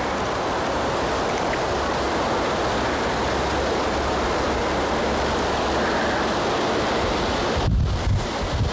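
Steady rushing hiss of wind. Near the end it gives way to low, rumbling wind buffeting on the microphone.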